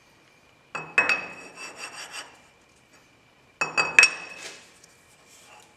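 A steel lathe chuck on its backing plate is being worked by hand on the spindle nose taper. There are two bouts of metal knocks with a short ring, each followed by scraping, about a second in and again near four seconds in.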